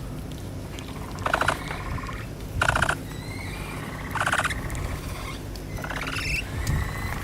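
Capybara calling: four short, buzzy squeaks about a second and a half apart, the last one rising in pitch.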